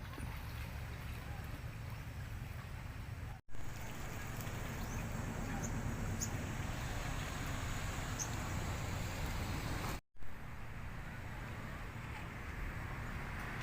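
Steady seaside ambience of wind and waves, with a heavy low rumble of wind on the microphone and a few faint high chirps. It cuts out abruptly for a split second twice, about a quarter of the way in and again about three-quarters through.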